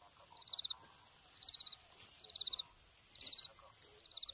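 A cricket chirping: five short, high-pitched chirps, about one a second, each a fast run of pulses.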